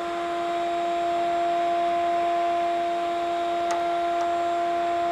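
A steady hum held at one pitch, unchanging throughout, with two faint clicks of wire cutters snipping about three and a half and four seconds in.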